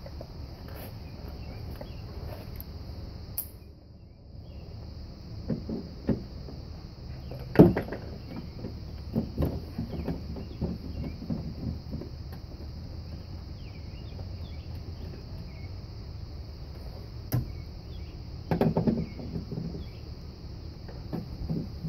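Scattered metallic clicks and knocks of a hand tool working the bolts that hold the door latch assembly in a Honda CR-V front door. The loudest knock comes about a third of the way in and another cluster comes near the end. A steady high insect drone runs behind.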